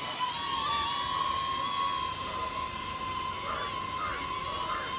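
DJI Neo 2 mini drone's small propellers whining at a steady high pitch as it hovers and comes in to land on an outstretched hand.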